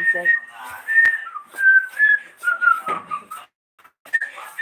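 A whistled tune: a run of short single notes stepping down in pitch, cut by a brief dropout about three and a half seconds in, then resuming.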